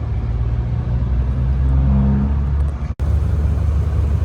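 Heavy truck's diesel engine idling with a steady low rumble, briefly rising a little in the middle. The sound drops out for an instant about three seconds in.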